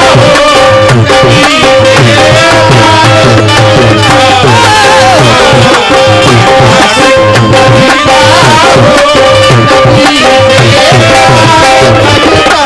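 Qawwali music: tabla and dholak beating a steady rhythm under long held harmonium notes, with a melody that bends in pitch weaving over it.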